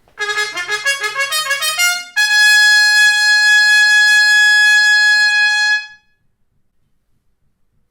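Trumpet played with a metal straight mute: a quick rising run of notes, then one long held high note that stops about six seconds in. The tone is a little nasal, typical of the straight mute.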